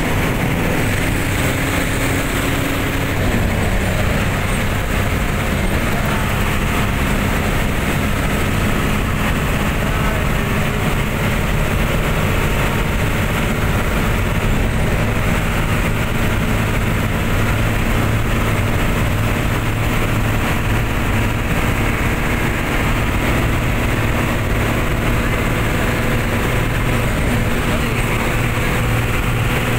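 Steady engine drone and tyre and road noise heard from inside a moving vehicle's cabin on a highway; one engine note drops in pitch about three seconds in.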